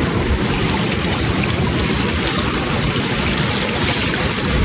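Shallow mountain river rushing steadily over rocks and boulders.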